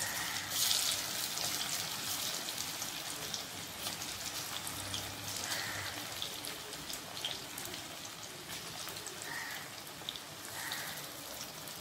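Masala-coated squid pieces deep-frying in hot oil in a kadai: a steady sizzle full of sharp pops and spits, louder for about a second near the start as fresh pieces drop in. The popping comes from the squid giving off water into the oil.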